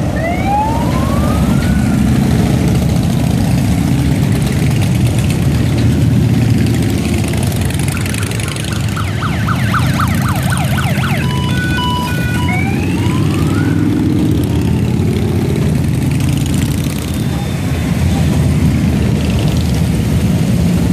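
A column of cruiser and touring motorcycles riding past, many engines running together in a continuous low drone. Over it, a police escort siren gives short rising whoops near the start and again about twelve seconds in, with a fast warbling burst and a few short beeps in between.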